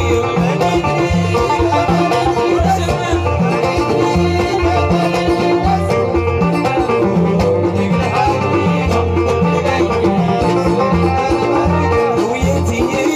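Live Moroccan tagroupit band music: an amplified banjo plays a quick plucked melody over a low, repeating bass line, loud and steady throughout.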